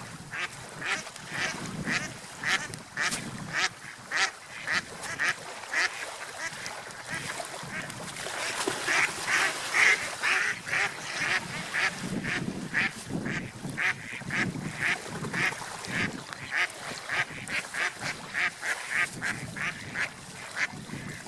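Ducks quacking in a long run of short, rapid calls, about two to three a second, loudest around the middle.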